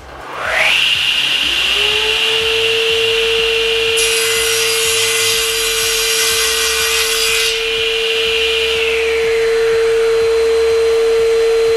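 SIP 01332 cast iron table saw's 2200 W motor starts and quickly whines up to speed. The blade cuts through a small block of wood from about four to seven and a half seconds in, then the motor brake stops it within about a second, near nine seconds in. A steady lower hum from a second motor comes in about a second and a half in and keeps running.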